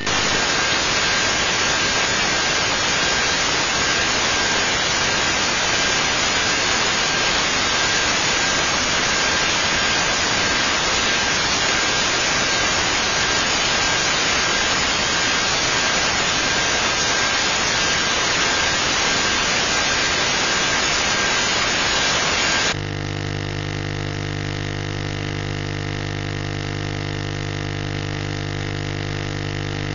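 Loud, even static hiss from a TV receiver's FM sound channel as the long-distance TV signal fades out, with a faint steady whistle through it. About 23 seconds in the hiss cuts off suddenly and gives way to a quieter steady buzz of several low and mid tones.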